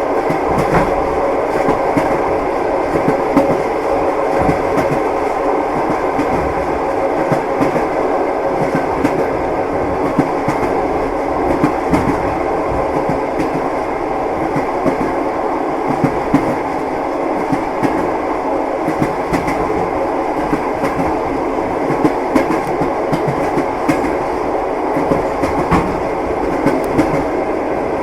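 Train running steadily, its wheels knocking over rail joints with the clickety-clack heard above a continuous rumble.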